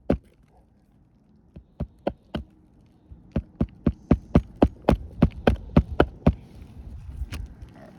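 Hammer driving a roofing nail into an asphalt shingle roof: a few spaced blows, then a quick even run of about a dozen blows at roughly four a second. The nail goes in with difficulty under a shingle lifted only slightly.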